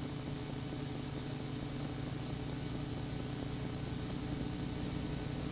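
Steady low hum and hiss with a constant thin high-pitched whine: the background noise of an old TV broadcast recording, with no distinct sound event.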